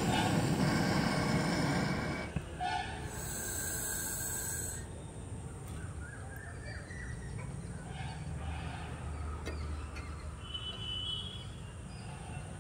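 Handheld gas brazing torch flame hissing on a copper pipe joint of an AC condenser coil, stopping about two seconds in. A short high hiss follows, then birds chirp faintly.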